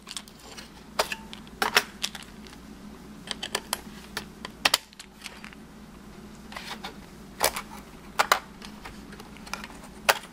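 Scattered sharp clicks and taps of hands and a small tool working at an open laptop's memory slots, releasing the RAM modules from their retaining clips and lifting them out.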